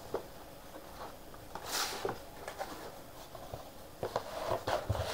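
Thin white cardboard box being handled and its lid opened: light scrapes and taps, a short rustle about two seconds in, and a cluster of small knocks near the end.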